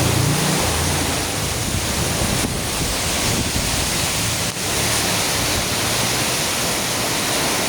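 Heavy tropical downpour in strong wind: a steady, loud rush of rain and wind, with low rumbles of wind buffeting the microphone.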